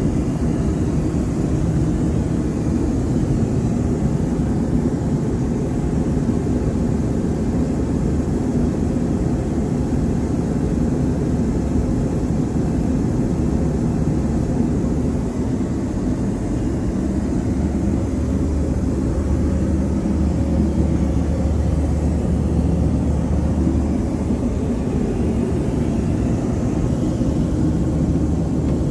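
Steady low rumble of a Boeing 737-800's aircraft noise heard inside its lavatory, unchanging throughout with no flush.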